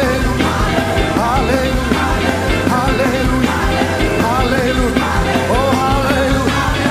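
Live band playing loud, upbeat worship music with a steady drum beat and a lead melody that slides between notes.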